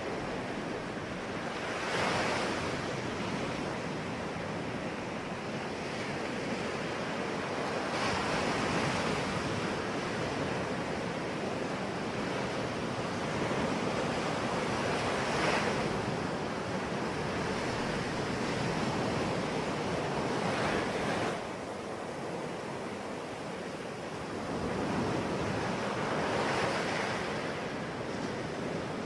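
Ocean waves breaking and washing on the shore, a steady rush of surf with a louder surge every five to six seconds. Some wind noise on the microphone.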